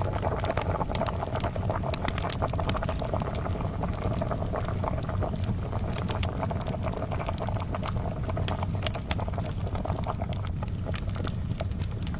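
Kettle boiling with a steady bubbling rush, over a charcoal fire with many small irregular crackles and pops throughout.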